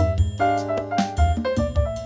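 Background music: piano or keyboard playing a quick run of notes over a steady bass, with light percussion strikes.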